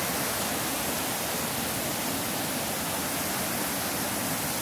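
Steady rushing of the Tahquamenon River's Lower Falls, water pouring over low, wide rock ledges and churning in the rapids below.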